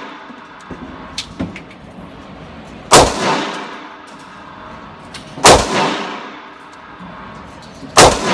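Handgun firing Federal aluminum-cased ammunition: three shots about two and a half seconds apart, each followed by a short echo. A couple of light metallic clinks come between the first shots.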